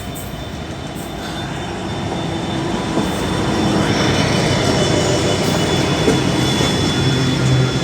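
A train passing close by, with wheel and running noise on the rails and a steady hum. It grows gradually louder.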